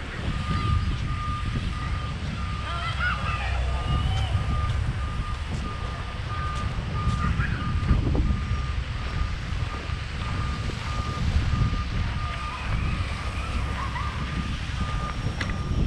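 A vehicle's reversing alarm beeping on and off at one steady pitch throughout, over a constant low rumble.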